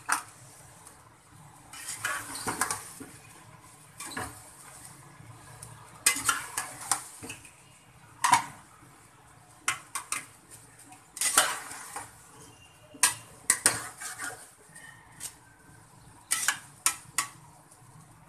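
Metal slotted spatula stirring a thick okra and tomato curry in an aluminium pot, scraping and clinking against the pot's sides in irregular bunches every second or two.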